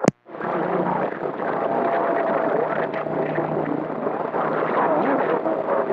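Tram D201 CB base station switching back to receive on 27.025 MHz (channel 6): a click as the microphone is unkeyed, then a steady wash of static with garbled, overlapping distant voices and a faint steady whistle from a carrier underneath.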